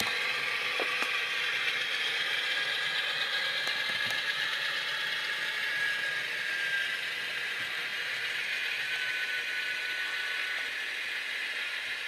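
Sound-decoder diesel engine sound for a GE U50 model locomotive, with twin GE engines running, played through the model's small onboard speaker as it rolls, mixed with the whir of its drive mechanism. A tone in the sound slowly falls in pitch.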